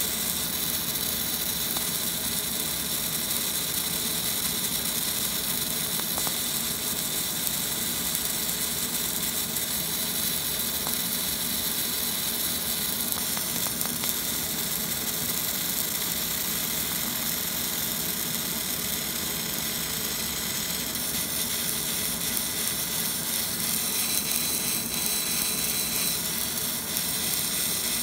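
Fiber laser marker engraving a metal plate: a steady hiss and sizzle as the beam hatches across the metal.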